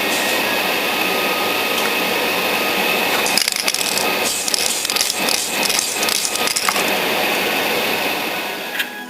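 Aerosol spray can of Tamiya TS-13 gloss clear spraying a plastic model with a steady hiss and a faint whine. A run of rapid clicks and rattles comes through the middle, easing off near the end.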